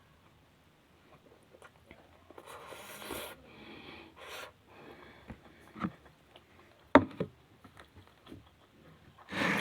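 Close-miked eating sounds: soft chewing with a few breathy puffs or sniffs, and scattered clicks, the sharpest about seven seconds in.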